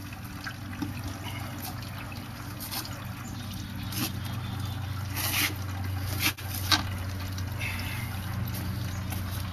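Fresh apple-and-grape juice trickling out of a fruit press, with a few sharp clicks and knocks around the middle, over a steady low hum.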